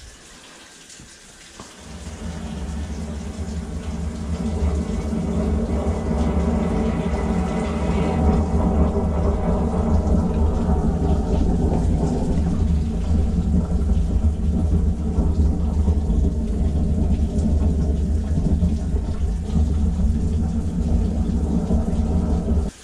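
Spartan high-pressure sewer jetter running with its pump engaged, driving a Warthog rotating root-cutting nozzle through the sewer line: a loud, steady rumble of machine and rushing water. It builds up over a few seconds after starting and cuts off suddenly near the end.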